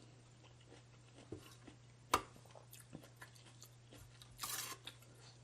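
Close-up chewing of a mouthful of rice noodles with fried chicken skin: soft wet mouth clicks and crunches. A sharp click about two seconds in is the loudest sound, and a short noisy crunch or slurp follows near the end, over a steady low hum.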